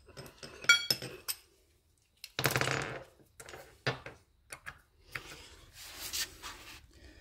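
Metal hand tools being handled: a sharp, ringing metallic clink about a second in, then a longer scraping rattle near three seconds and a few small clicks.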